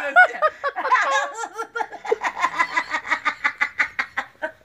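A man laughing hard, breaking into a long run of quick, even ha-ha-ha pulses, about five or six a second, from about a third of the way in.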